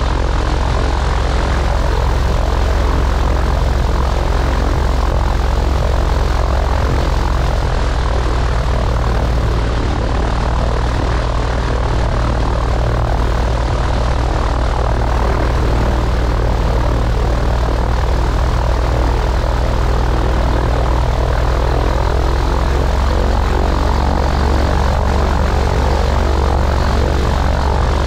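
Piper Pawnee tow plane's piston engine and propeller running steadily on the ground, below takeoff power.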